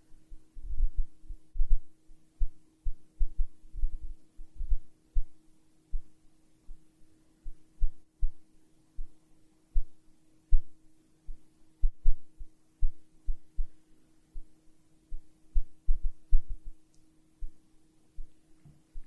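Steady low hum with deep, uneven heartbeat-like thumps, several a second.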